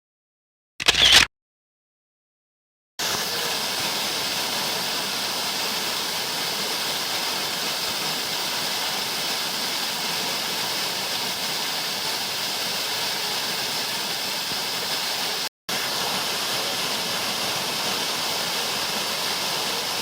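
Steady rush of a waterfall, an even hiss of falling water that starts suddenly about three seconds in and breaks off for a split second about three-quarters of the way through. A brief loud burst sounds about a second in, before a gap of silence.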